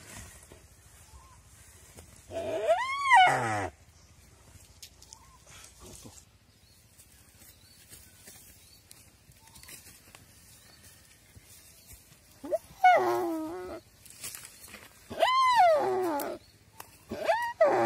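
A live deer being eaten by a Komodo dragon gives loud, drawn-out distress bleats, each about a second long and rising then falling in pitch. There is one call early on, then a quiet spell, then three calls close together near the end.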